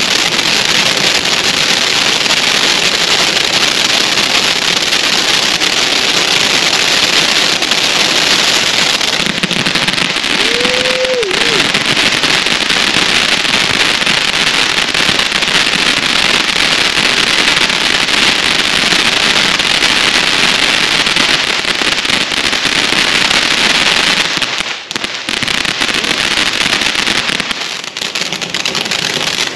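A 500-gram consumer firework fountain, Outlaw Pyro's The Psychic, burning with a steady loud rushing hiss as it sprays sparks. A brief pitched tone sounds about ten seconds in, and the spray thins out for a moment twice near the end.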